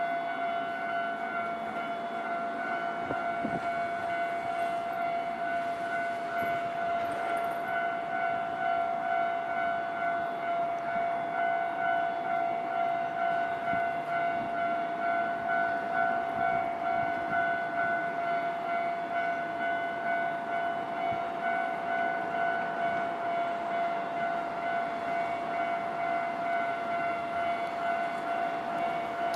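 Japanese railway level-crossing alarm ringing: an electronic bell tone repeating in an even pulse, on a JR Kisei Main Line crossing. A train runs through the crossing at the same time, its rumble growing louder toward the middle.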